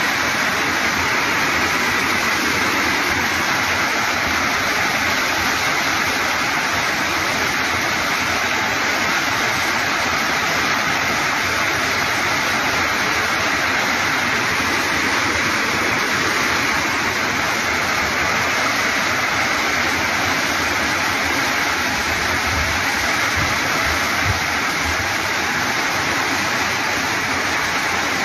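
Torrential rain falling hard and steadily, a dense, even rush of water with no let-up. A few low bumps sound about three-quarters of the way through.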